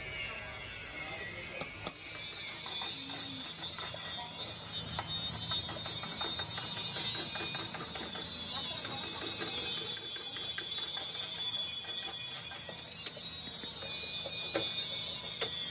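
A couple of sharp metal snips in the first two seconds. Then dense clicking and rattling as a stack of thin lead-alloy battery grid plates is riffled and knocked square by hand, over a steady high-pitched tone.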